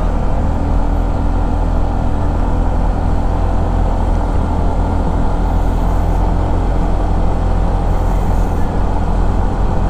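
Steady riding noise from a Honda ADV150 scooter at cruising speed: an even drone of engine and wind rush at the rider's microphone, with no break or change.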